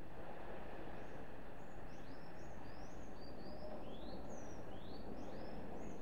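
Small songbird singing a quick series of short rising chirps, starting about a second in, over a steady low rush of gentle surf on the beach.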